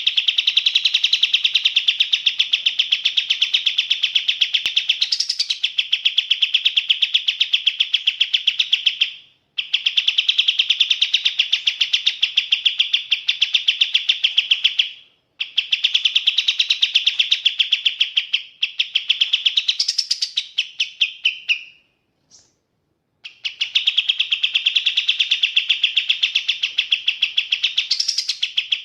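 Sooty-headed bulbul (kapas tembak) singing in long bouts of rapid, even trilling chatter, several seconds each. Brief pauses fall at about 9, 15 and 22 seconds in, and a short sharper note rises out of the trill now and then.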